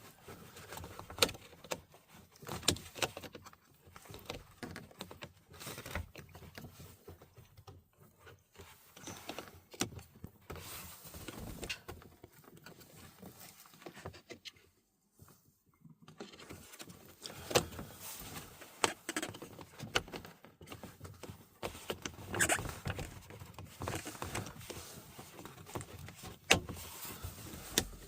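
Hard plastic clicking and rattling as a small cabin air temperature sensor is handled and pressed into its plastic housing in the dashboard. The sharp clicks come at irregular intervals, with a short pause about halfway through.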